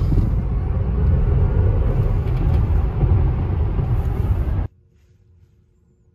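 Loud, steady road and tyre rumble inside the cabin of a 2019 Tesla Model X accelerating hard from about 36 to 66 mph, with no engine note. It cuts off abruptly near the end to a quiet, stationary cabin with only a faint steady hum.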